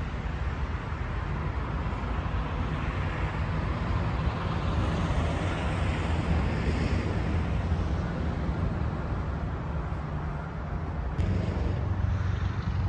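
Diesel train locomotive running, a steady low engine drone under rumbling noise. The sound changes abruptly about eleven seconds in.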